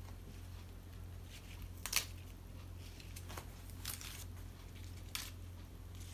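Crisp lettuce leaves rustling and crinkling in a few short rustles as they are handled and laid down, the loudest about two seconds in, over a steady low hum.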